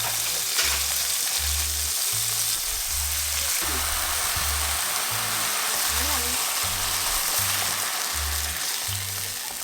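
Food sizzling and frying in a hot pan, a steady hiss, over background music with a regular bass line.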